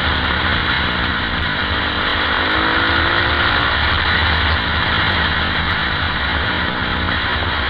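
KTM 520 EXC supermoto's four-stroke single-cylinder engine running steadily under way, recorded onboard the bike.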